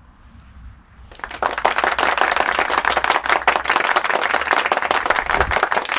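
Applause, a dense, even patter of many hands clapping, starting suddenly about a second in and running on past the end.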